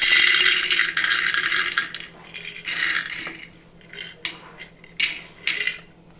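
Raw almonds poured from a glass jar into a dry non-stick frying pan for roasting, clattering across the pan for nearly two seconds, then several shorter rattles.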